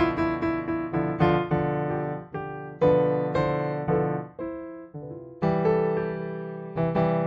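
Solo piano music: single notes and chords struck a few times a second and left to ring and fade. About five seconds in the playing briefly thins out, then a new chord is struck and held.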